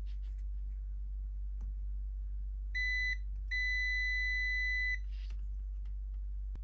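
Digital multimeter's continuity beeper: a short high beep about three seconds in, then a steady beep of about a second and a half while the probes touch the capacitor's terminals, signalling a closed connection between them. A steady low hum runs underneath.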